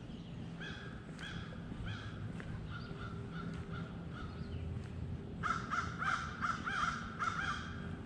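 A crow cawing: a few calls in the first half, then a quick run of louder caws in the second half, over a low steady background rumble.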